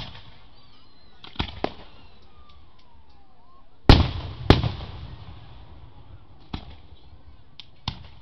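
Aerial firework shells bursting: a series of sharp booms, the two loudest about four seconds in and half a second apart, each trailing off in a rolling echo. Smaller bangs come before and after them.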